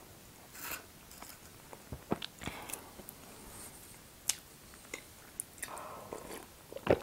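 Close-miked chewing of a mouthful of tiramisu: soft, wet mouth sounds with scattered small clicks. Near the end she sips tea from a mug, and a sharp click is the loudest sound.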